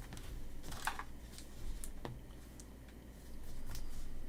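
Donruss Optic basketball cards being flipped through and slid over one another by hand: a few soft scrapes and clicks.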